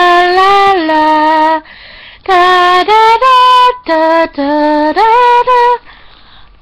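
A girl singing unaccompanied: a long held note that steps down in pitch, a brief pause, then a run of shorter notes, stopping near the end.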